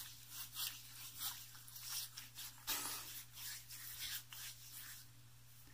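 Wet hands rubbing water over a lathered face and neck: a run of soft, irregular swishing rubs as the shaving lather is rinsed off between passes.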